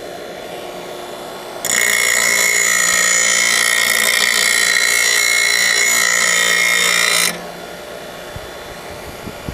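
Bench grinder running, with a steel lawn mower blade pressed against its grinding wheel from about a second and a half in for some six seconds: a loud grinding with a high ringing note as the cutting edge is sharpened. Then the blade is lifted away and the grinder keeps spinning free, more quietly.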